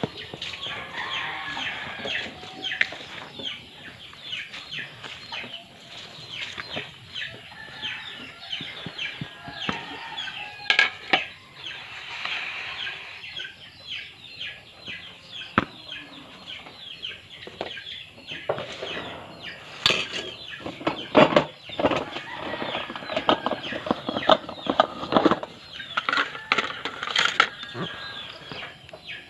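Chickens clucking, mixed with clicks and rustling from hands working in a bowl of flour and handling an egg.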